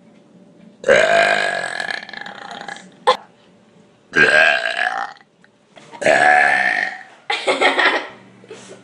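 A person belching loudly four times: one long belch of about two seconds, then three shorter ones of about a second each, with a short sharp click after the first.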